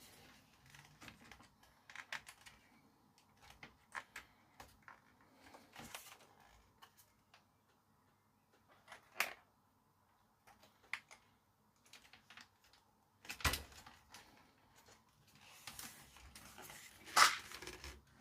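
Irregular light clicks and knocks of hands handling and prying at the parts of a hi-fi tuner on a workbench, with a sharper knock about halfway through and the loudest knock near the end.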